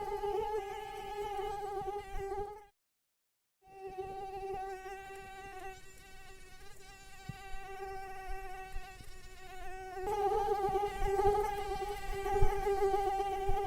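Female mosquito's wingbeat whine, a steady high-pitched buzz with a slight wavering. It cuts out completely for about a second near three seconds in, comes back softer, and grows louder again about ten seconds in.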